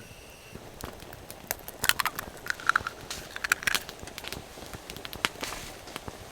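Irregular clicks and light knocks, with a cluster of short ringing clinks about two to four seconds in: small gear or utensils being handled and set down.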